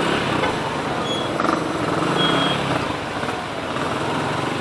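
Congested street traffic heard from a motorcycle: a steady hum of idling and creeping engines close around, with two brief high-pitched tones about a second and two seconds in.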